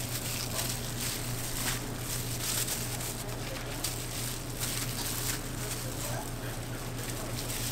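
Food-stall work sounds: irregular light clicks and clatter over a steady low hum.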